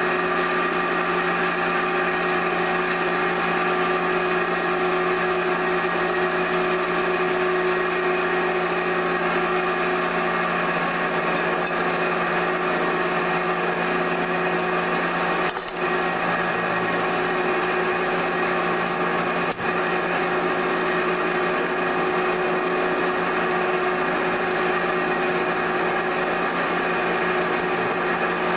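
Electric potter's wheel running at a constant speed: a steady motor hum and whine with a faint slow pulse, broken by two short knocks around the middle.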